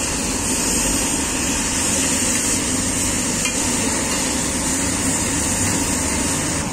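Chole, onions and tomatoes sizzling loudly and steadily on a large iron tawa, with a light metal clink now and then from the cook's spatula.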